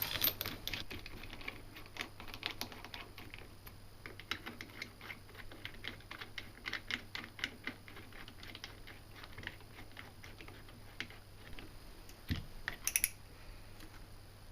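Irregular light clicks and taps of bolts and tools being handled while the two halves of a motorcycle brake caliper are bolted together, some in quick runs of several clicks. Near the end there is a dull knock, then a short sharp clatter.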